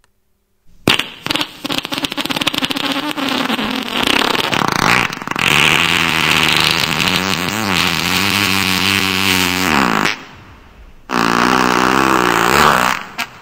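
A cartoon fart sound effect: one long, loud fart of about nine seconds whose pitch wavers up and down, then a second, shorter one near the end.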